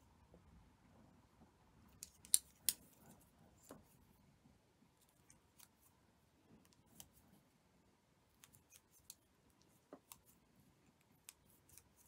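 Quiet, irregular small clicks and taps of plastic tatting shuttles and a metal hook being handled while tatting lace, with a pair of sharper clicks about two seconds in.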